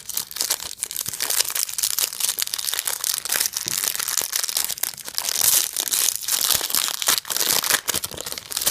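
Foil wrapper of a Match Attax trading card pack being torn open and crinkled by hand: a dense, continuous crackling and crumpling.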